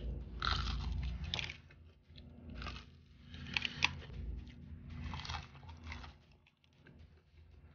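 Close-up crunching and chewing of breaded fried chicken: the crispy coating crackles between the teeth in irregular bursts.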